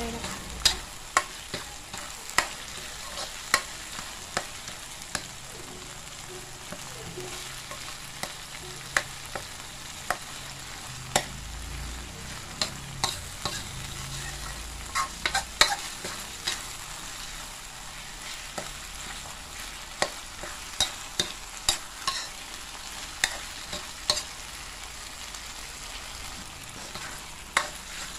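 Minced pork, tomato and chili paste sizzling in a steel wok while a metal ladle stirs and scrapes through it, with sharp, irregular clinks of the ladle against the wok.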